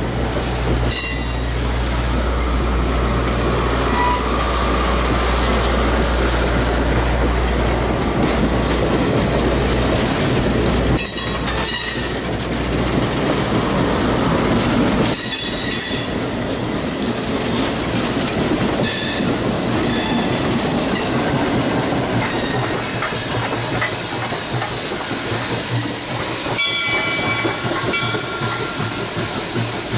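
Steel-wheeled passenger coaches rolling past close by, wheels clacking over rail joints. A steady low hum runs through the first half, and a thin high wheel squeal holds from about halfway on.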